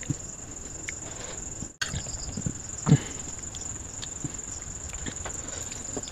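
Crickets trilling steadily against the dark, with soft taps and handling sounds as curry is tipped from a bowl and mixed into rice by hand on a steel plate; one sharper knock comes about three seconds in.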